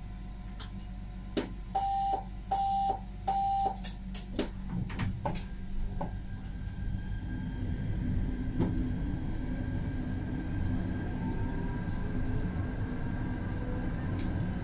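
Three short electronic beeps, then a few clicks, then an Alstom Citadis tram pulling away: a rumble building up with a faint rising whine from the traction motors as it gathers speed.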